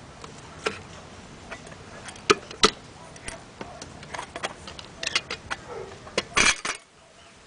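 Light metal camping cookware clinking and knocking as it is handled: the Esbit cookset's pot and folding wire handles tapping against a titanium MSR Titan Kettle. Scattered sharp clicks, a quick cluster about two-thirds through, and a short rattle near the end as the pot is set down.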